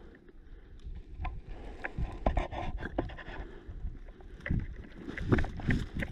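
A player moving on foot with gear: irregular thumps, knocks and rustling over a low rumble of wind and handling noise on the microphone.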